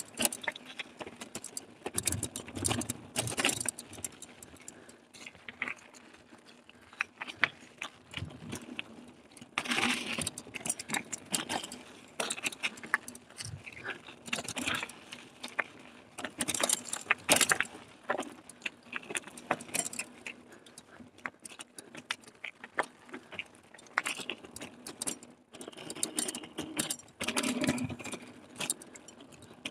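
Carrera Hellcat mountain bike rattling and clattering as it is ridden over a rough trail, with irregular knocks and jangles from the chain and frame on each bump.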